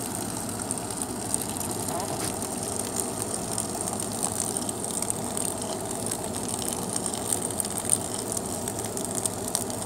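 A stream of hot tap water pouring steadily into a plastic tub of dry instant noodle blocks, filling it.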